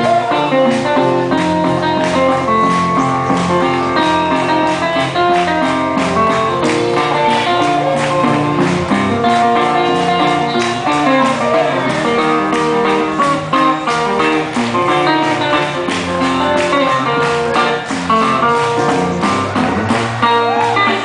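Amplified guitar playing an instrumental passage, picking quick runs of notes with no singing.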